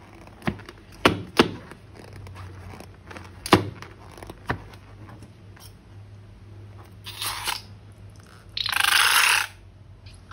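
Slime-making materials being handled: several sharp clicks and taps, then a loud hissing rush lasting about a second near the end.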